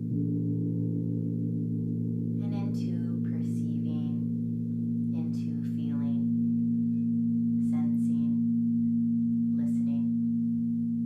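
Crystal singing bowls and a gong sounding together in a steady, sustained low drone. Four short, higher gliding sounds rise over it about a second or two apart.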